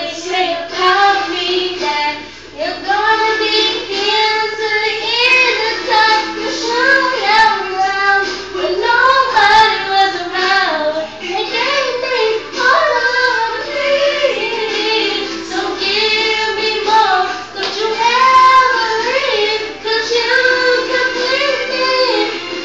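A young girl singing an R&B song solo without words spoken, her voice gliding up and down through long sung phrases with brief breaths between them.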